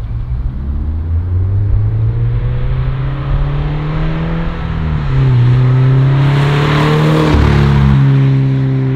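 A 2022 Subaru BRZ's 2.4-litre flat-four, breathing through a Top Speed titanium exhaust, accelerating hard past the camera in a flyby. The engine note climbs, drops at an upshift about five seconds in, then climbs again. It is loudest as the car passes, about seven seconds in, and then lowers in pitch as it goes away.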